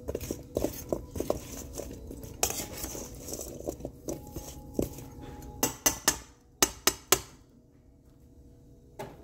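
Oiled chunks of root vegetables being tossed in a stainless steel mixing bowl with a metal utensil: repeated clinks and scrapes of metal on the bowl. A handful of sharper, louder clinks come a little past halfway, then it goes quieter near the end.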